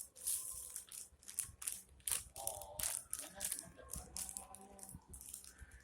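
Plastic packaging being handled, crinkling and rustling in a quick series of short scratchy bursts.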